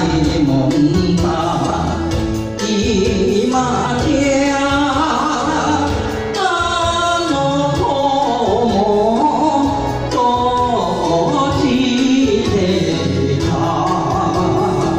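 A man singing a Japanese-language song into a handheld microphone over backing music with a steady beat.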